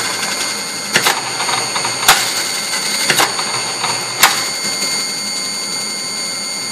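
Auger powder filler running a fill cycle: a steady motor whine with the auger turning in the hopper and the agitator blade sweeping the inner wall. A sharp click comes about once a second, then stops after about four seconds while the whine runs on.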